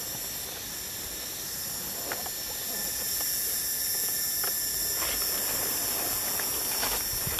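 Steady high-pitched drone of forest insects, growing a little louder about three seconds in, with a few faint clicks.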